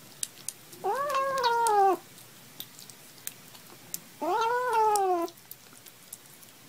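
A kitten meowing twice, each call about a second long, rising then falling in pitch. Faint clicks of eating wet food come in between.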